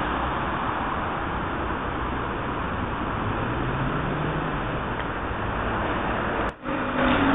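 Steady urban road-traffic noise, with a faint engine hum from a passing vehicle in the middle. The sound cuts out briefly near the end.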